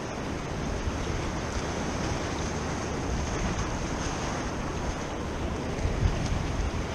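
Wind and water: a steady rush of choppy inlet water and surf breaking on a rock jetty, with wind buffeting the microphone in low rumbles, strongest in a gust about six seconds in.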